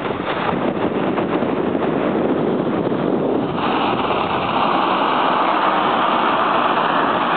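Steady wind rush on the microphone mixed with skate wheels rolling fast on asphalt during a downhill run. About three and a half seconds in, the noise turns brighter and hissier.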